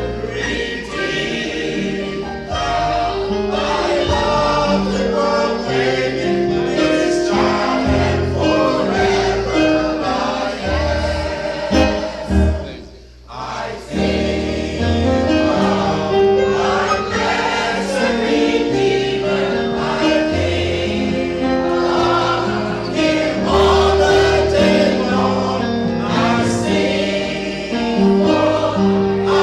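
A choir singing a song with musical accompaniment and low bass notes underneath. The music breaks off briefly about halfway through, then resumes.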